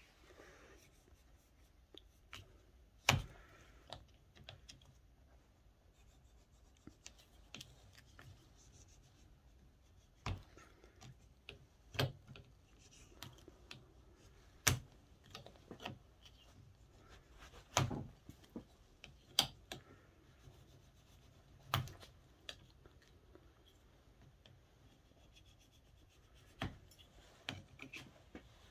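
Metal tools scraping and rubbing under a scooter's rubber handlebar grip as it is twisted and pried loose from the bar, with sharp clicks and knocks every couple of seconds.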